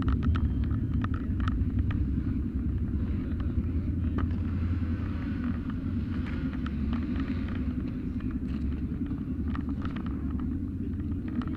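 Motorcycle engine running steadily at low revs, a dense low rumble, with scattered light clicks and rattles over it.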